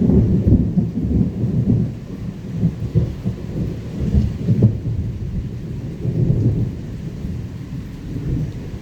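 Thunder rumbling low and rolling over steady rain, loudest in the first couple of seconds and slowly easing off.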